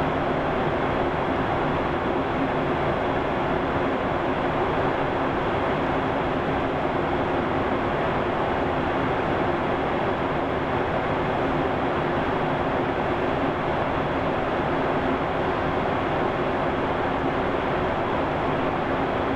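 Steady cabin noise of a Boeing 737-800 in flight: an even rush of airflow and engine drone with a few steady low hums underneath.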